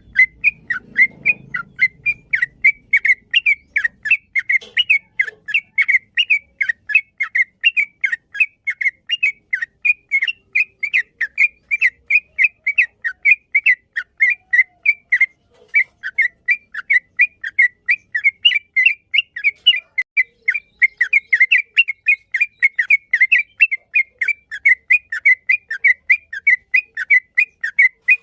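Yellow-vented bulbul (trucukan) singing a long, unbroken run of short whistled notes, about three a second.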